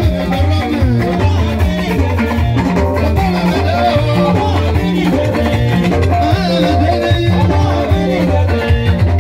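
Live band playing: electric guitars over a repeating bass guitar line, with a drum kit.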